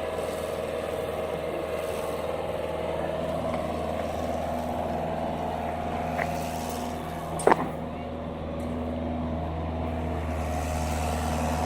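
Heavy diesel engine running at a steady speed, with a single sharp knock about seven and a half seconds in.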